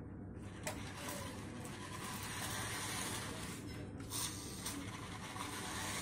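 Remote-control monster truck's small electric motors and gears whirring as it drives over dusty concrete and grit, with a couple of sharp clicks.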